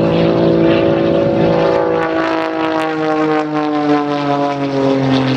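Pitts S-2S Special aerobatic biplane's piston engine and propeller droning in flight, the note sliding steadily lower as the aircraft manoeuvres.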